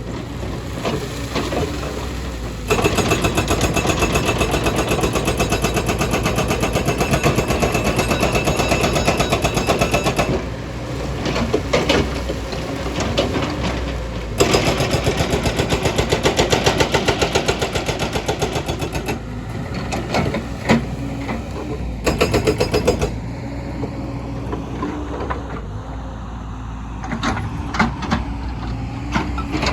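Excavator-mounted hydraulic breaker hammering in rapid, evenly repeated blows, in two long bursts and a few short ones near the end, with the excavator's diesel engine running between bursts.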